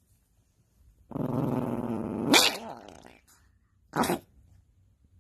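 Yorkshire terrier mix growling for about a second, ending in a sharp bark, then one short bark a second and a half later: grumpy protest at being woken from sleep.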